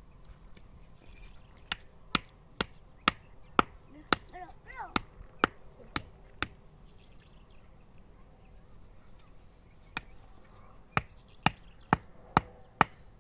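Repeated sharp knocks, about two a second, in two runs separated by a pause of a few seconds.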